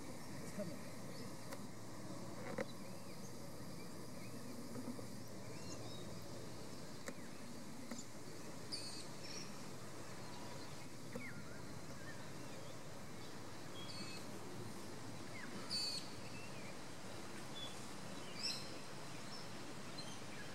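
Outdoor ambience with scattered birdsong: short, high chirps every few seconds over a steady background noise.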